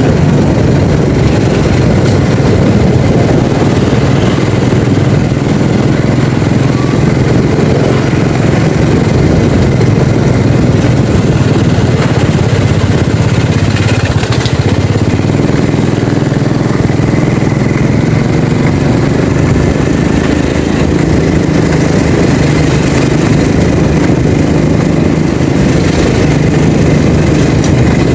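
A vehicle engine running steady under heavy road and wind noise while driving.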